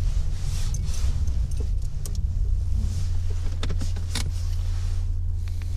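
Car running, heard from inside the cabin: a steady low rumble with scattered light clicks and rattles.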